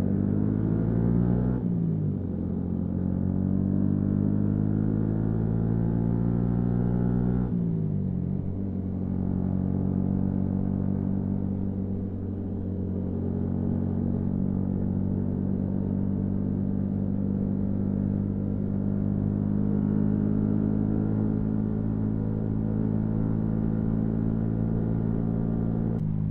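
Yamaha MT-125's single-cylinder engine pulling through the gears: the pitch rises, then drops sharply at two upshifts about two and eight seconds in, after which the bike cruises at a steady engine speed.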